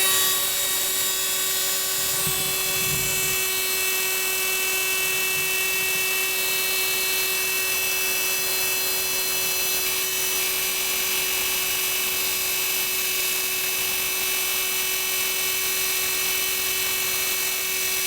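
Electric high-pressure HPA air compressor (4500 PSI class, water-cooled) switching on and running steadily, a constant hum with a high-pitched whine, pumping an air tank up from about 1000 PSI.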